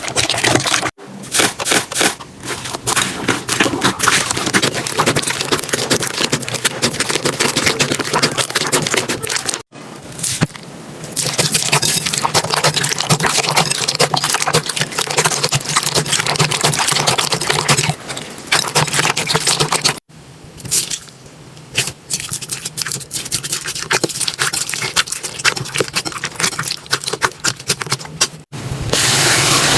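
Slime being worked by hand, giving dense crackling, clicking and small pops. The sound cuts abruptly several times as one clip gives way to the next.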